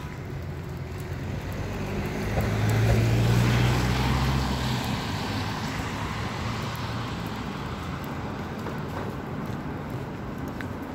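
A car driving past on a wet street: tyre hiss and engine hum swell to a peak about three to four seconds in, then fade as it moves away, leaving steady street noise.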